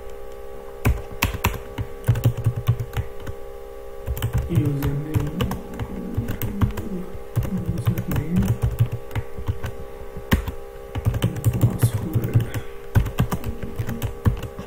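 Typing on a computer keyboard: a run of irregular key clicks, with a steady hum underneath.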